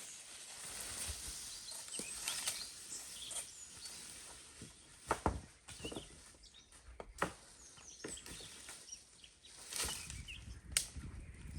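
Rustling with a few sharp cracks, and small birds chirping faintly.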